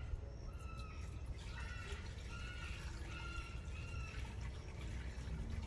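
Compost tea poured from a bucket into a plastic backpack sprayer tank, a steady splashing pour. A bird calls repeatedly in short, even-pitched notes in the background.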